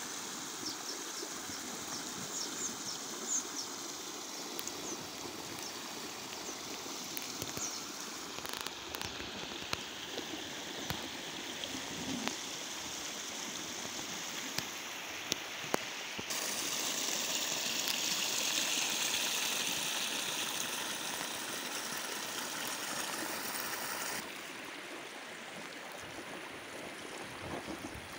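Rain floodwater flowing steadily and swirling down a whirlpool into a hole in a flooded paddy, a continuous rush of water with some gurgling. A few short clicks sound in the first half, and the water grows louder and brighter for several seconds past the middle.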